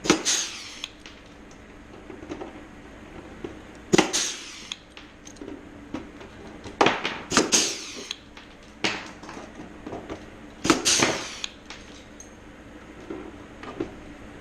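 Rivet puller setting blind rivets in aluminium flaperon skin: a sharp snap as each rivet sets, followed by a short fading hiss, about seven times at uneven intervals, with faint clicks of parts being handled between.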